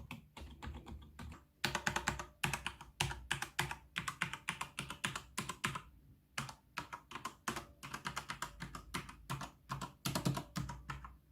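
Typing on a computer keyboard with quiet keys: rapid runs of key clicks in bursts, softer at first and louder from about a second and a half in, with short pauses between runs.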